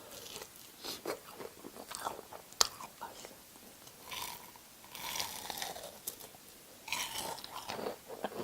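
Close-miked bites into crunchy breaded pork cutlet and chewing: irregular crisp crunches and mouth clicks, thickening into longer crackly spells twice.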